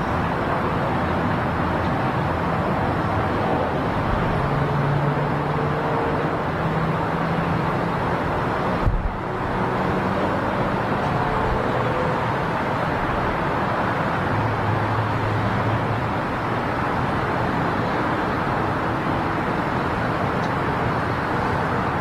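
Boeing 777 jet engines heard during a takeoff roll that is then rejected: a steady rushing noise with a few faint held tones. There is a brief break about nine seconds in.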